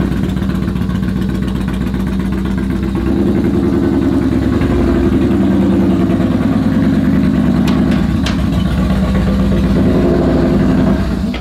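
Yamaha Bolt R-Spec's air-cooled V-twin running with its exhaust baffles removed. It gives a loud, steady, rapidly pulsing exhaust note that cuts off abruptly near the end.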